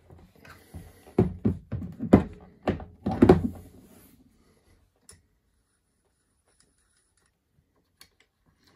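Heavy metal rotary vise (Mitutoyo 218-003, about 7 kg) set down on a hard surface: about half a dozen knocks and thuds over two seconds as it is placed and settled, the loudest near the end. Two faint clicks follow later.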